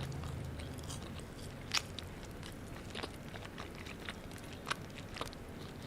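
Close-miked mouth sounds of chewing pizza, with irregular wet clicks and a few sharper crunchy bites, the clearest about two seconds in and again near the end.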